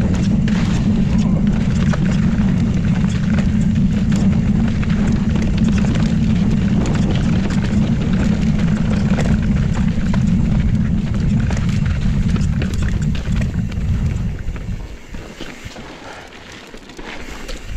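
Wind noise buffeting a ride-along camera's microphone, with the clatter and rattle of a mountain bike and its tyres running over granite rock on a fast descent. About fifteen seconds in, the wind noise falls away for a couple of seconds, then picks up again near the end.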